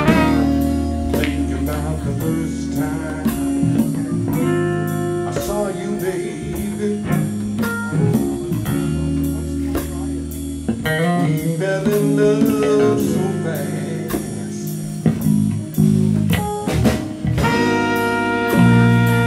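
Live soul-jazz band playing a blues-R&B groove with a steady beat: electric bass, drum kit, congas and guitar, with the horns coming in on a held chord near the end.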